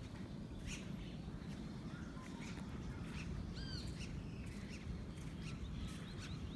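Wild birds chirping and calling, with quick short notes throughout and a few clear arched chirps a little after halfway, over a steady low rumble.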